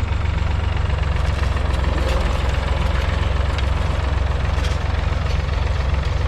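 1969 David Brown 780's 2.7-litre three-cylinder diesel engine running steadily.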